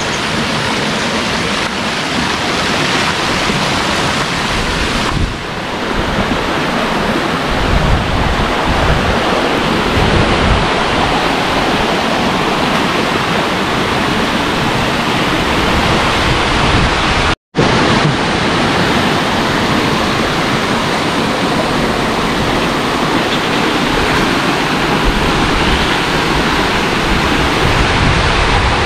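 Loud, steady rush of waterfall and stream water, with wind buffeting the microphone at times. The sound cuts out for a split second about two-thirds of the way through.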